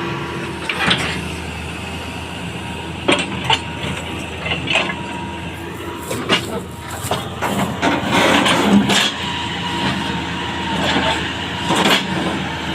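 Hitachi excavator's diesel engine running steadily, with a string of sharp knocks at irregular moments.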